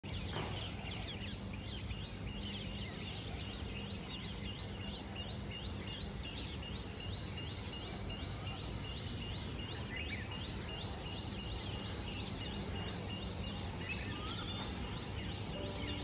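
Birds chirping over a steady low hum of town background noise, one bird repeating a short, high chirp in a quick, even series.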